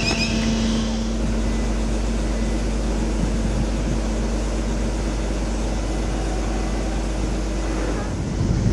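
Steady low rumble and hum of a large passenger ferry's machinery and ventilation, heard from its open deck while it lies at the quay.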